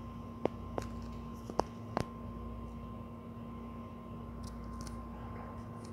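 Quiet room tone with a steady electrical hum, and four short clicks in the first two seconds, like a phone being handled close to the microphone.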